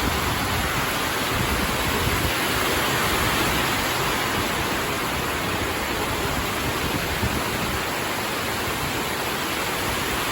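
Steady, loud rushing noise that fills every pitch, with a fluttering low end.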